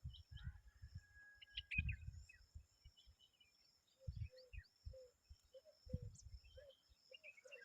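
Common babblers, an adult and chicks, calling in short scattered chirps and squeaks, with a run of short, lower repeated notes in the second half. A steady high-pitched tone runs behind, and irregular low thumps, the loudest sounds, come and go.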